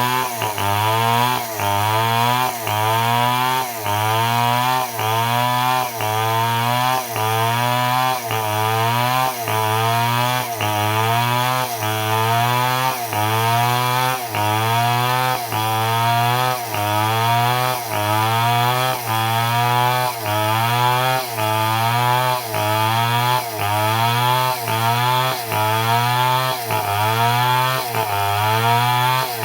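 Stihl MS 250 two-stroke chainsaw cutting at full throttle, ripping a log lengthwise into boards. Its engine pitch dips and climbs back about once a second as the bar is worked through the cut.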